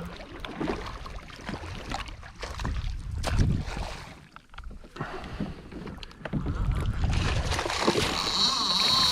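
Water sloshing against a fishing kayak, with wind on the microphone and knocks of gear being handled. Near the end a fishing reel's drag starts buzzing steadily as a hooked fish pulls line.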